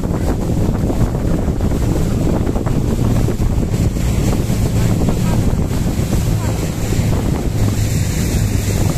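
Wind buffeting the microphone over the steady low hum of a RIB boat's outboard engine and the sea against the hull.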